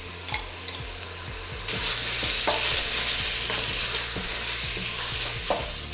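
Minced-beef filling with onion, peppers and tomato frying in an enamel pot, sizzling as a wooden spoon stirs it, with a few scrapes of the spoon. The sizzle gets suddenly louder about one and a half seconds in.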